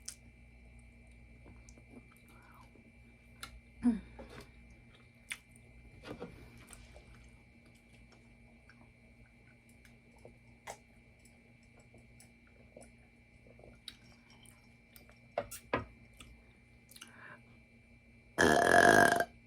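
Quiet eating sounds with scattered small clicks, then near the end one loud burp lasting about a second.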